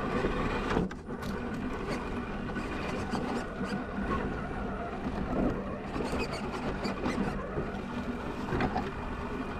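Scale RC crawler's electric motor and gears whining steadily, heard close up from on board, with scattered clicks and crunches of the tyres on the dirt and rocks; the drive briefly eases off about a second in.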